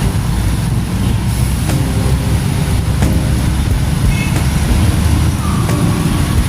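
Steady low rumble of a road vehicle on the move: engine and tyre noise on a highway.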